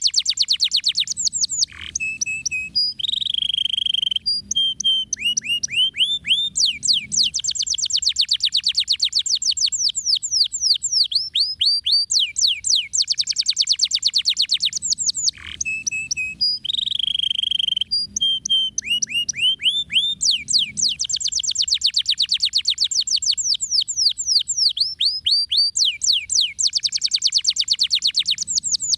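Domestic canary singing in full voice: long, very fast trills of quick falling notes, broken now and then by short held whistled notes and brief pauses.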